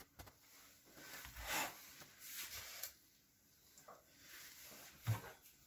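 Faint rubbing and rustling of hands working chopped walnut filling over a sheet of dough on a countertop, with a few soft knocks, the loudest one near the end.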